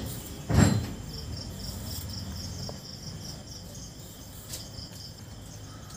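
Crickets chirping in a steady, even pulse, about four chirps a second. A single loud thump comes about half a second in.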